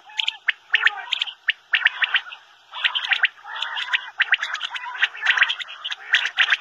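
Common quail (batair) calling over and over: quick groups of short, sharp notes with lower notes mixed in, and a brief pause about two seconds in.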